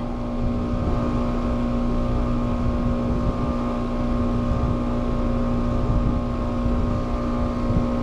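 Trane 4TWX36 two-stage heat pump outdoor unit running: a steady hum from the compressor and fan with one strong low tone.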